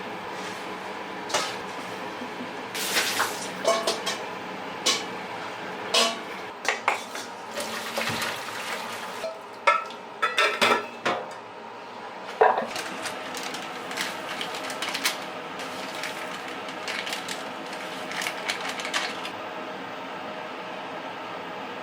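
Dishes and cutlery clinking and clattering in irregular knocks, busiest and loudest in the middle, over a steady background hum.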